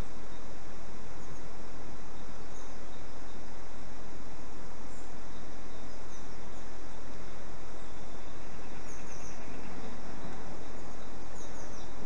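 Faint, short, high-pitched chirps of small birds every few seconds over a steady, even background hiss, with a small cluster of chirps near the end.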